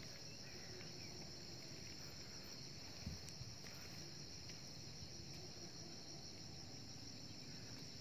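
Faint, steady high-pitched chorus of insects in grass, with a single soft low thump about three seconds in.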